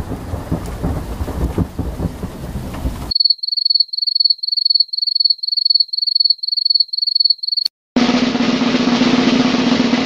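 A stock thunderstorm sound effect, thunder rumbling, which cuts off about three seconds in. A single cricket chirp effect follows in an even high-pitched pulse of about three chirps a second and stops suddenly. A snare drum roll then starts near the end and keeps going.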